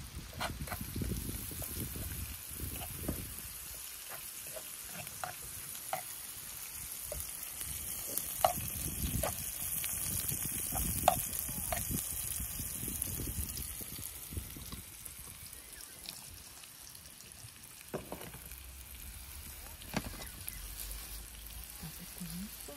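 Food sizzling in a frying pan, a steady hiss, with scattered light clicks and knocks.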